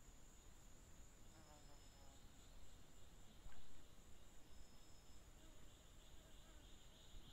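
Faint forest insects trilling: a steady high-pitched drone, joined after a second or so by a second, pulsing trill that grows louder toward the end. A few short high whistles and a brief low bump about three and a half seconds in.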